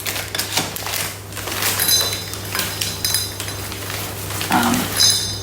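Nuts poured from a bag into a bowl: a dense, busy rattle of small clicks, with a couple of brief ringing clinks from the bowl.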